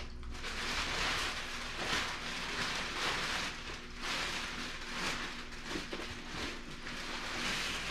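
Plastic bags being rummaged through, rustling and crinkling in uneven swells.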